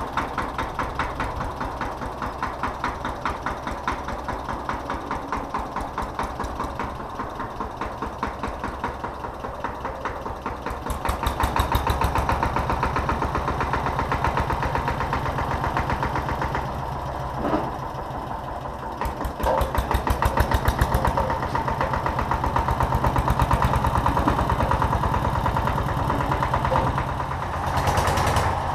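Small Kramer tractor's diesel engine running with a steady fast chug, then louder under load from about ten seconds in as it pulls away towing the baler.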